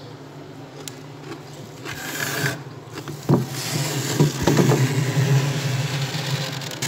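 Fingers scraping frost off the inside wall of a freezer, a rough scratching that starts about two seconds in and grows louder, with a couple of sharp knocks midway.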